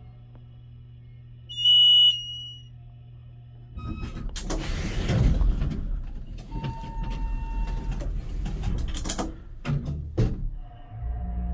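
Elevator car humming as it travels, then a single loud arrival chime about two seconds in. The doors then rumble open and shut with a few clunks near the end, and the car's steady hum starts again just before the end.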